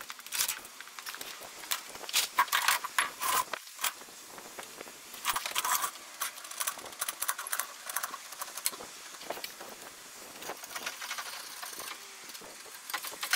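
Metal tools and parts clinking and rattling irregularly as they are handled, with some scraping.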